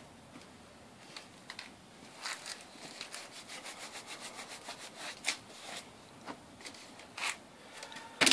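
A cloth rag being handled and laid down on wooden boards: a run of faint, irregular rubbing and scraping strokes with a few short sharp clicks.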